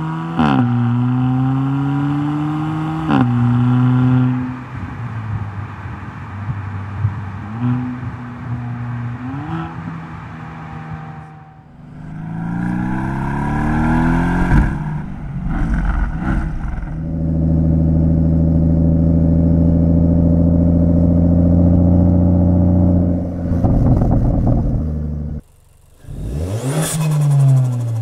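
Car exhaust recordings cut together: an engine accelerating with two quick upshifts, the pitch dropping at each shift, then more revving climbs, a long steady pull at high revs, and near the end a car passing with its pitch falling.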